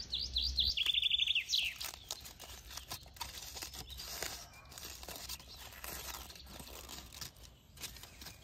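A bird chirps and trills in the first second or two. Then aluminium foil crinkles and rustles in short crackles as it is peeled open by hand from around an egg baked in the coals.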